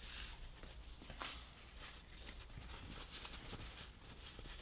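Quiet room tone with a few faint, light clicks; one click a little more distinct about a second in.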